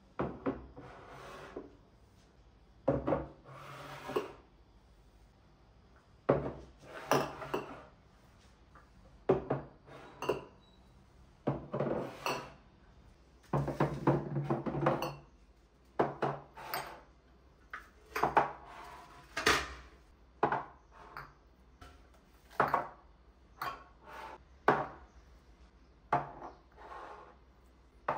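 Kitchenware clattering and knocking as it is put away into kitchen cabinets. Dishes, containers and utensils are set down on shelves and against wood, in irregular knocks and clinks every second or so.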